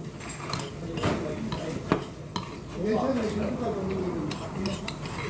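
Metal chopsticks clicking and scraping against a bowl while eating, with several sharp clinks scattered through. A voice talks briefly around the middle.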